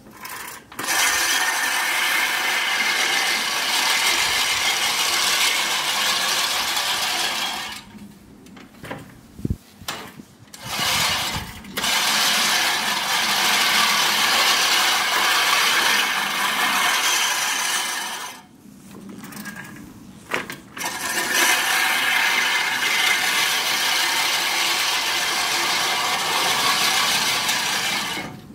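Sun Joe reel lawn mower's spinning reel blades cutting tall grass in three long pushes of several seconds each, with short gaps between.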